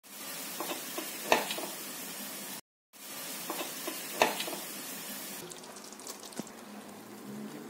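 Pot of basmati rice boiling hard in water: a steady bubbling hiss with a few sharp clicks, the loudest just after a second in and again about four seconds in. The hiss grows softer a little after five seconds.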